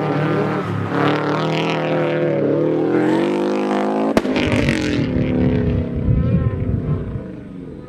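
Subaru Liberty RS Turbo's turbocharged flat-four engine revving hard, its pitch climbing and dropping, with one sharp crack about four seconds in. After the crack it runs rougher and lower and fades away near the end.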